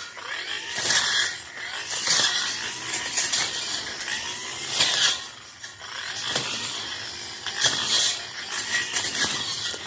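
Tanzu brush cutter cutting through thick scrub, its engine pitch rising and falling with the throttle. Loud bursts of hiss come every second or two as the blade tears into the brush.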